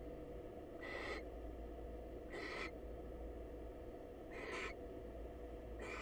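Barn owl giving four short, harsh hissing calls, about one and a half seconds apart, over a steady low hum.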